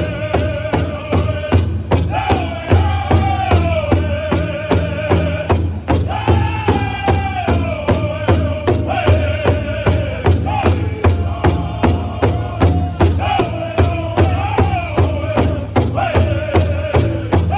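Powwow drum group: several men strike a large hide-headed drum together in a steady, even beat while singing in unison, high-pitched, with phrases that start high and step downward.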